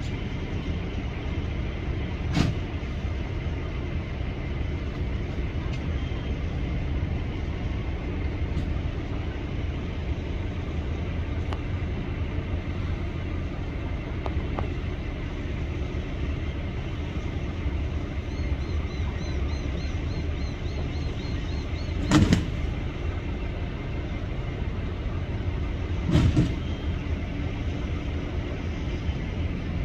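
Heavy diesel machinery running steadily, with a loud clank about two seconds in and two more near the end.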